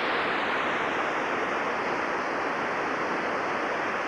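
Whitewater rapid rushing over boulders, a steady, unbroken roar of water.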